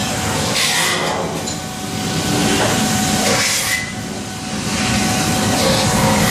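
Factory machinery running with a steady hum and a faint constant tone, cut by three short hisses of compressed air, likely from the robot's pneumatic suction gripper.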